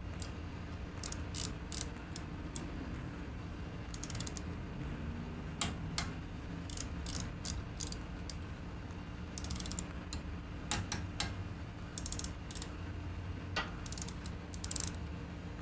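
Socket wrench ratcheting in short runs of rapid clicks, several times over, as the head bolts of a General Pump pressure-washer pump are tightened down. A low steady hum runs underneath.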